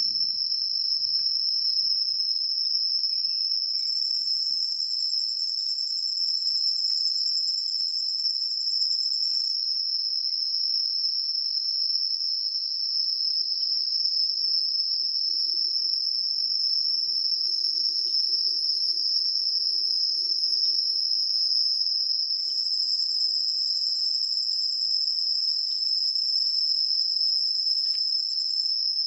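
A steady, continuous high-pitched insect chorus, an unbroken trill that never pauses. A faint low rumble sits underneath for a few seconds in the middle.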